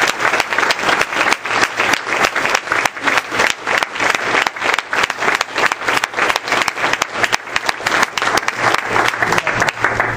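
Audience applauding: many people clapping densely and loudly, the clapping thinning out and stopping abruptly near the end.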